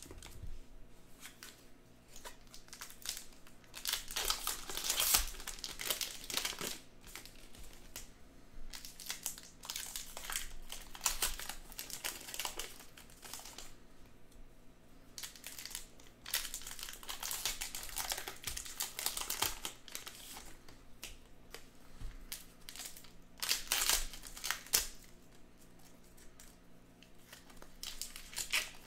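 Trading-card pack wrappers being torn open and crinkled by hand, in bursts of rustling every few seconds.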